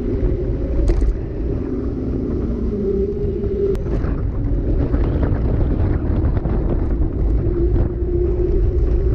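Wind on a GoPro's microphone and tyre rumble on asphalt as a mountain bike rolls downhill, with scattered clicks and rattles from the bike over bumps, more of them in the second half.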